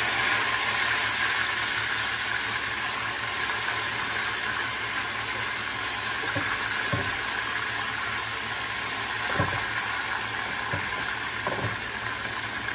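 Seasoned chicken pieces frying in hot oil in a frying pan: a steady, loud sizzle. A few soft knocks come in the second half as more pieces are laid in.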